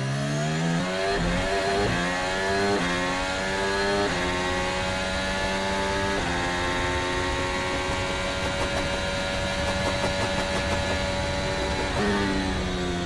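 Formula 1 car's turbocharged V6 engine heard onboard at full throttle, its pitch climbing through a string of quick upshifts, then held high and steady. About twelve seconds in the pitch drops sharply as it downshifts for the next corner.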